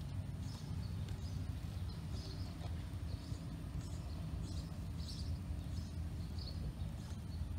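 Outdoor ambience: a steady low rumble with short, faint high-pitched chirps scattered through it about every half second to second.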